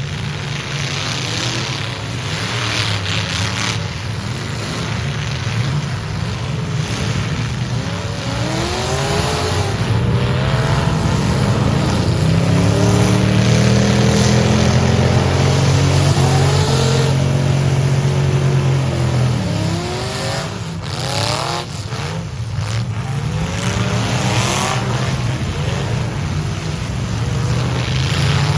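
Demolition derby truck engines revving hard again and again, loudest in the middle, with a few sharp bangs of impact about two-thirds of the way through.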